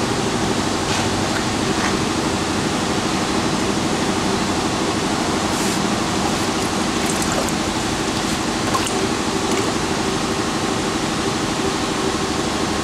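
Steady mechanical hum and hiss of shop machinery running, with light water sloshing as a mounted tire is turned in a water tank for a leak check.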